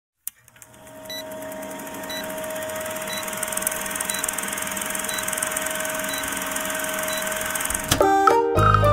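Film projector sound effect: a steady mechanical whir and rattle fading up, with a short high blip about once a second marking a countdown. Near the end a sharp click, then music starts.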